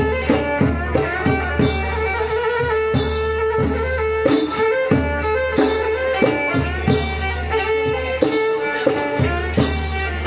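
Live Northern Khmer folk ensemble playing mamuad spirit-medium ritual music: hand drums beating a steady, quick rhythm under a bowed fiddle melody with long held notes.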